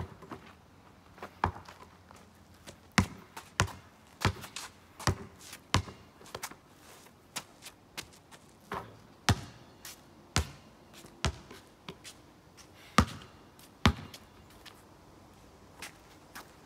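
Basketball bouncing on pavement as it is dribbled: sharp, irregularly spaced bounces with short gaps between runs.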